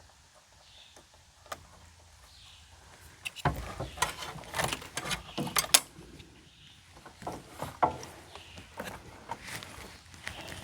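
Small clicks, taps and rattles of wires and connectors being handled while the leads of a Dometic RV refrigerator's replacement igniter are connected. The first few seconds are quiet, then a busy run of clicks follows, with scattered ones after it.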